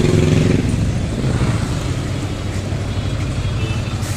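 Road traffic: a nearby motor vehicle's engine hum is loud for the first half second, then gives way to a steady rumble of passing traffic.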